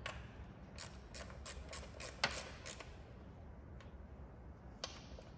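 A string of light, sharp clicks from hand work on engine-bay parts, several a second for about two seconds, then a couple more near the end.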